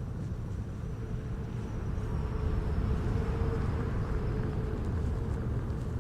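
Steady engine and road noise of a car driving on a highway, heard from inside the cabin. A faint hum in it grows a little louder about halfway through, then eases off.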